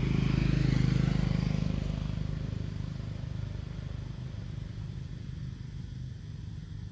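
A motor vehicle's engine droning, swelling to its loudest about a second in and then fading.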